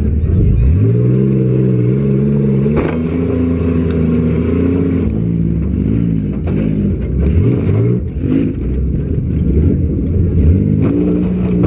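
Demolition derby car engines revving up and falling back, several at once, with a few sharp crashes of metal on metal about three, six and eleven seconds in.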